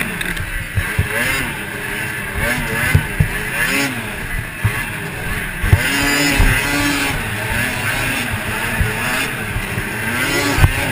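2006 Ski-Doo MXZ X 440 snowmobile's two-stroke engine racing, its pitch rising and falling over and over as the throttle works over the bumps, with a longer high-revving stretch about six seconds in. Sharp thumps come from the sled hitting the rutted track, with wind noise on the helmet microphone.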